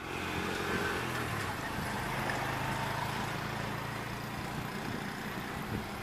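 Diesel-electric locomotive engine running steadily as it hauls a passenger train toward the listener, with a low hum and an even level throughout.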